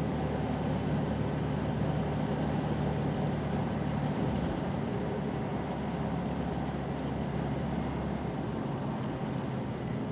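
Car driving on a snow-covered road, heard from inside the cabin: a steady engine hum under tyre and wind noise. The low hum eases about four seconds in and again near the end.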